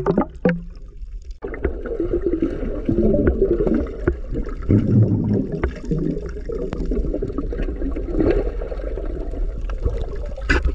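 Seawater sloshing and gurgling, over a steady low rumble.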